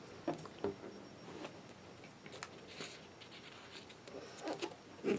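Faint rustling and light tapping of paper as hands handle planner sticker sheets and press stickers onto the page, with a few sharper clicks near the end.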